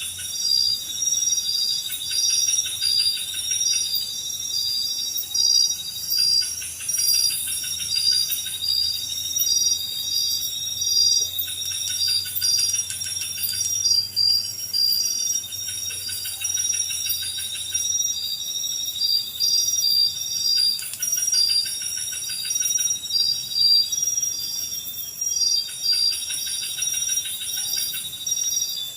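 Chorus of night insects: several high-pitched trills overlapping, one pulsing in a steady beat of about two a second, others starting and stopping every few seconds.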